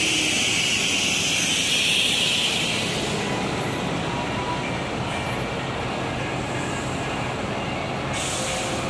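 Mercedes-Benz OC 500 RF 2542 coach driving slowly at low speed, its engine running steadily, with a hiss of air over the first three seconds and a brief second hiss near the end.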